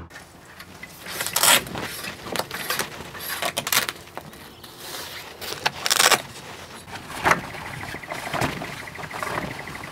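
Irregular knocks, clatter and fabric rustling as a roof-rack-mounted vehicle awning is folded and packed away by hand, with a fast ticking rattle near the end.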